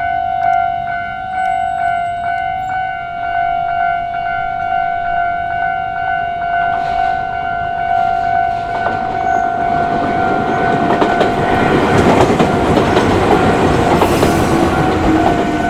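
Japanese level-crossing warning bell ringing with an even beat, a few strokes a second. From about seven seconds in a train passes, its noise building up and loudest near the end.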